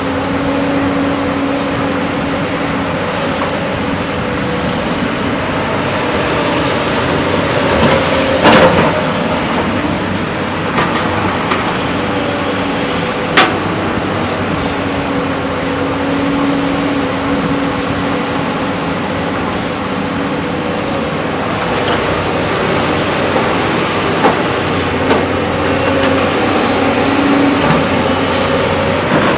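JCB excavator's diesel engine running steadily while digging, with two sharp knocks partway through.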